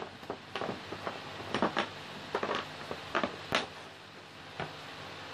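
Thick round discs being picked up and set down one by one on a wooden workbench: a scattered series of short knocks and clacks as they meet the wood and each other.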